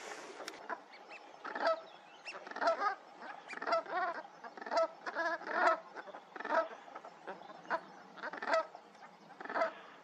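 A flock of brent geese calling on the water: a run of short, rolling honks, about one to two a second, bunched and overlapping through the middle.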